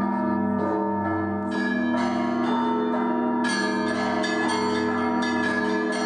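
Russian Orthodox chime from the Pskov-Pechersky Monastery belfry, its bells rung by monks pulling ropes. Smaller bells are struck in quick succession over the sustained hum of the big bells, and the ringing grows brighter about halfway through. The ringing calls the faithful to the service.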